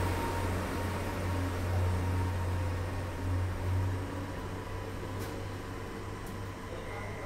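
Cummins DMF14HZ diesel engine of a KiHa 40 railcar running with a steady low drone that slowly grows quieter. Two light clicks come near the end.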